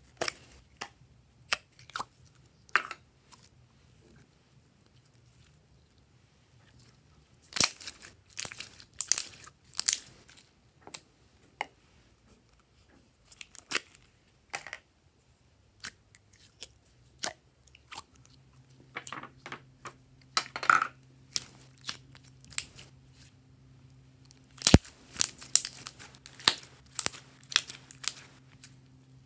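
Glossy glitter slime being handled and squeezed, making irregular sticky clicks and crackles. They are busiest about a third of the way in and again near the end.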